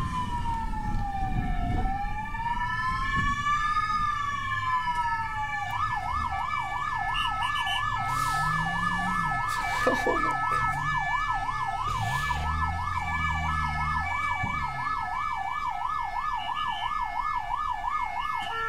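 Electronic emergency vehicle siren in a slow wail, switching about six seconds in to a fast yelp of about three cycles a second, over low engine and road rumble.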